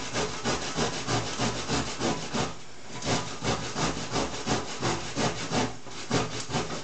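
Carrot being grated on the coarse side of a metal box grater on a wooden board: quick, even rasping strokes, about four or five a second, with a short pause midway.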